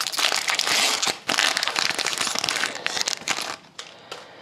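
Crinkling and rustling as trading cards and their packaging are handled and sorted in the hands, in two spells that die down near the end.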